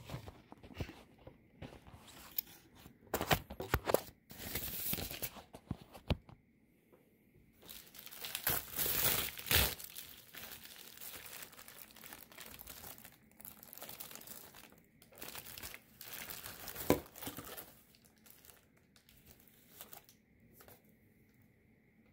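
Padded plastic bubble mailer being crinkled and torn open by hand: irregular rustling and crackling with sharper tearing bursts, the longest and loudest about nine seconds in, settling to quieter handling near the end.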